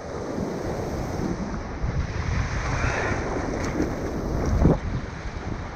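Strong wind buffeting the microphone over the rush of breaking surf, with a louder gust about four and a half seconds in.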